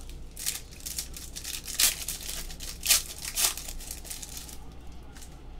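Trading-card pack wrapper being torn open and crinkled: a run of rustling with a few sharper crackles around two to three and a half seconds in, dying away near the end.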